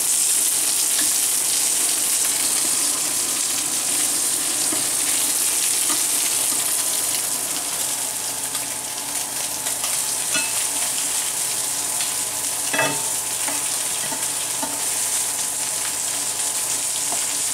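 Breaded pollock fillets sizzling in hot oil in a nonstick frying pan, a steady hiss. A few light clicks of metal tongs against the pan come in the second half.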